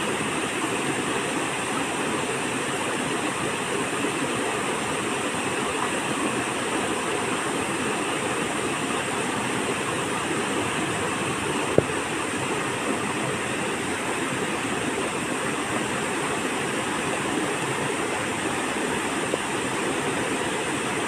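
Shallow rocky stream running over stones in small rapids: a steady, even rush of water. A single short click sounds about halfway through.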